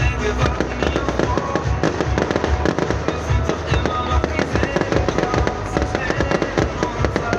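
Fireworks going off in a dense run of rapid crackles and pops, with music playing under them.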